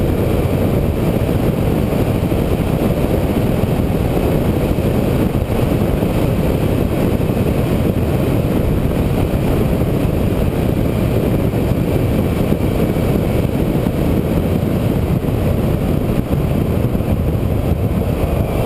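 A vehicle driving along a road: a steady mix of engine, tyre and wind noise that does not change.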